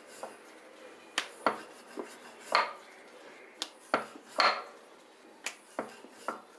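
Wooden rolling pin rolling dough out thin on a round rolling board: irregular clacks and knocks as the pin meets the board, with a few longer rolling strokes.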